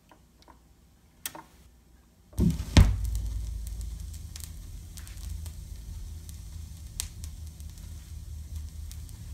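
Turntable stylus set down on a spinning vinyl record with a thump about two and a half seconds in, then the lead-in groove's low rumble and scattered crackles and pops before the music starts.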